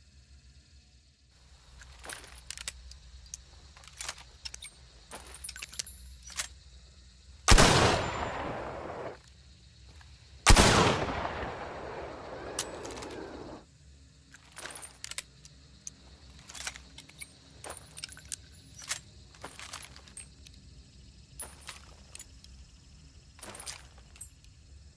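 Two Maynard rifle shots about three seconds apart, each a sharp crack followed by a long fading echo. Scattered small clicks come before and after the shots.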